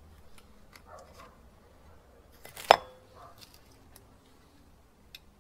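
A few light metallic clicks and knocks, then one sharp clank with a brief metallic ring about two and a half seconds in, as a new brake disc is fitted onto the front wheel hub.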